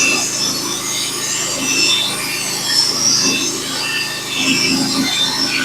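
Norwood HD36v2 portable bandsaw mill cutting through a log with a Stellicut band blade: a steady rasping saw noise over the mill's engine running.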